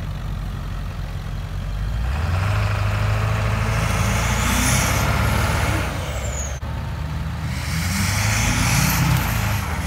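Diesel pickups, a lifted Duramax towing a stuck 7.3 Powerstroke by strap, revving hard under load in two surges. Each surge carries a high whistle that climbs and then falls away.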